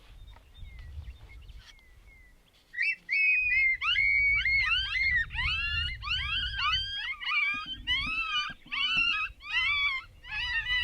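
A rapid series of high, wavering yips and whines of coyote pups, starting loud almost three seconds in after a few faint short chirps, each call bending up and down in pitch and repeating about twice a second.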